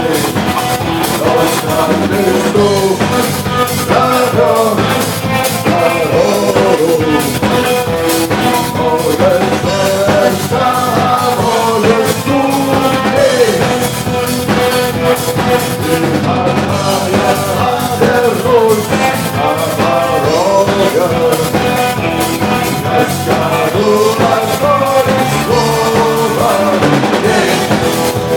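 Rock music with a drum kit and a melodic lead line, without recognised lyrics.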